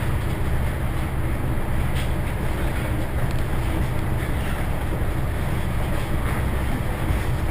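ED4M electric multiple unit running, heard from inside the passenger car: a steady low rumble with rail and running noise.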